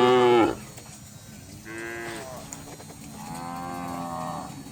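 Cattle mooing: a loud moo that cuts off about half a second in, a shorter moo around two seconds in, and a longer, quieter moo near the end.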